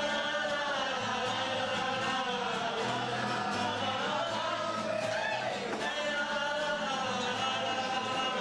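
Several voices singing a song together with instrumental accompaniment and a bass line under the singing.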